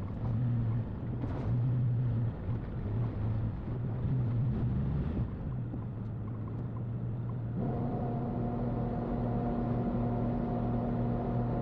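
Jeep Cherokee XJ driving on a rough road, a steady low rumble of engine and road noise with a few small knocks. About two-thirds of the way through, a held music drone comes in over it.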